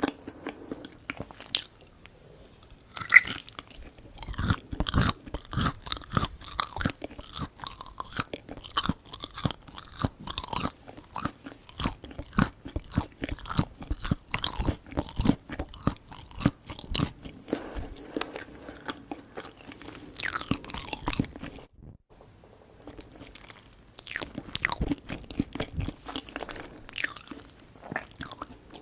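Close-miked chewing of Korean sweets, with dense wet clicks and soft crunches. The chewing pauses briefly about three-quarters of the way through, then resumes.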